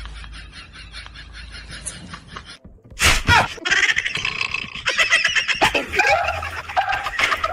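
Dubbed-in laughter, then after a brief break a loud comic sound effect of wavering animal-like cries.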